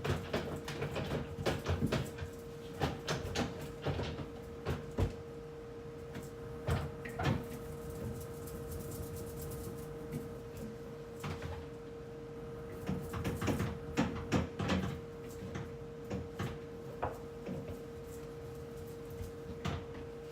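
Containers and shelves being handled while a refrigerator is cleaned and reorganized: irregular knocks, clicks and clatter as things are picked up, moved and set down, over a steady hum.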